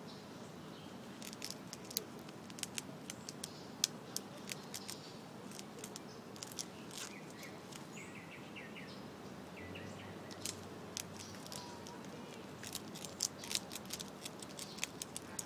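Fox squirrel gnawing through a plant stalk: quick, crisp clicks and small snaps of its teeth in the fibres, in runs with a lull in the middle.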